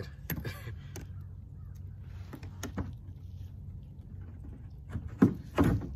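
Scattered knocks and clunks of fishing gear being handled against a kayak's plastic hull, a few early on and a louder cluster near the end, over a low steady rumble.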